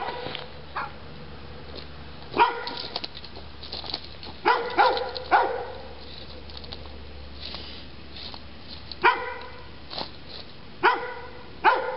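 A dog barking: short single barks, a quick run of three a little before halfway, and more near the end.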